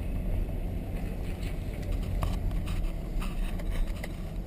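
Vehicle engine running low and steady at idle or creeping speed, heard from inside the cab, with a few light clicks and knocks on top.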